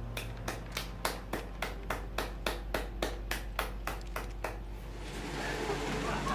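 One person clapping, a steady run of about four claps a second that stops about five seconds in.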